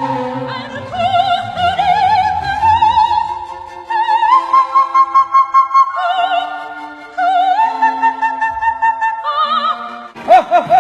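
Wordless operatic-style singing: long high notes with a wide, even vibrato, stepping up and down in pitch. Just before the end it switches to a quick run of short rising-and-falling notes.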